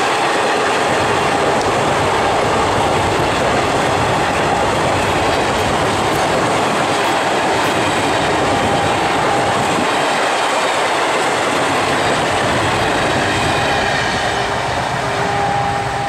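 Coaches of an Indian express passenger train rolling past at speed, wheels clattering over the rail joints, with a thin ringing tone that comes and goes. The sound stays steady and eases slightly near the end as the last coach draws away.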